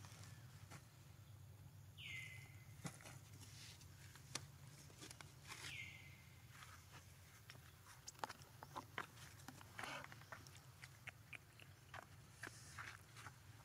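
Faint outdoor sounds: a bird gives a high whistled call twice, each one sliding down and levelling off, among soft scattered clicks and rustles over a low steady hum.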